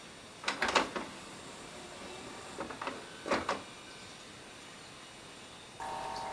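Aiwa NSX-S52 hi-fi system's mechanism being worked: a rapid cluster of clicks and clunks about half a second in, and two more groups around three seconds in. Near the end a steady tone comes on as playback starts.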